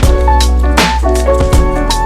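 Background music: a funk/R&B-style track with a heavy bass, sustained pitched notes and a regular drum beat.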